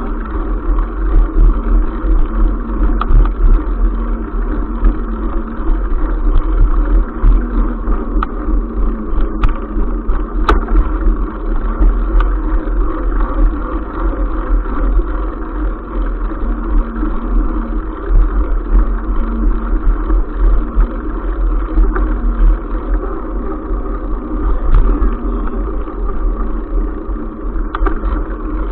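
Steady ride noise of a bicycle rolling along a concrete path, heard from a camera mounted on the bike: a loud, low, fluttering rumble, with two sharp clicks about a second apart around ten seconds in.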